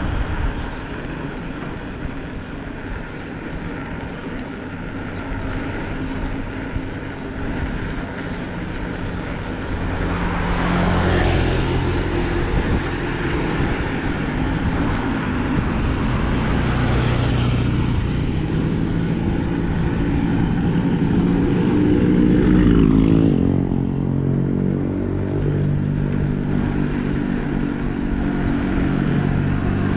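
Bicycle tires rolling on a road with a steady hum, while motor vehicles pass; engine notes come in from about ten seconds in, with passing swells around 11, 17 and 23 seconds, the last with a sliding pitch.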